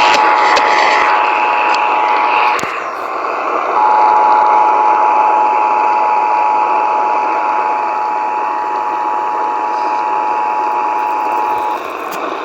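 Emergency Alert System two-tone attention signal (853 Hz and 960 Hz sounded together) received over AM radio, a steady dual-tone drone under heavy static hiss. One of the tones briefly drops out about three seconds in, and the signal cuts off near the end, ahead of the test announcement.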